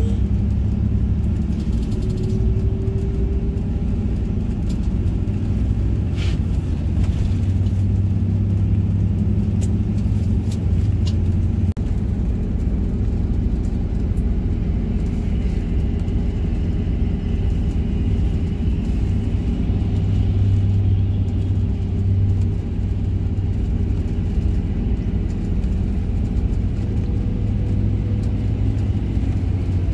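Intercity coach cruising, heard from inside the cabin: a steady low rumble of engine and road noise, with a few faint clicks and rattles.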